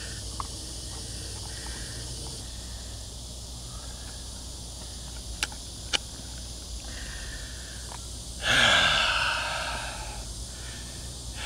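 Steady outdoor background hiss with a few faint clicks, and a loud breathy rush about eight and a half seconds in that dies away over a second or two.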